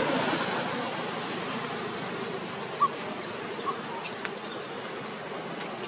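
Steady outdoor background noise with an insect-like buzz, slowly fading, broken by a few brief faint chirps around the middle.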